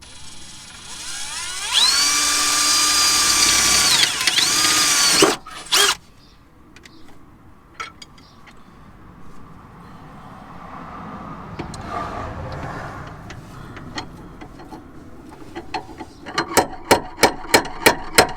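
Electric drill spinning up and drilling into the car's steel sill for about four seconds, its whine dipping briefly just before it stops. Near the end, rapid hammer blows on the sheet metal, about four a second, knocking the dented sill lip back into shape.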